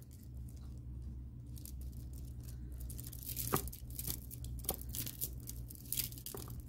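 A tangled beaded necklace being worked loose by hand: the beads click and rattle against one another in scattered light clicks that come more often from about a second and a half in.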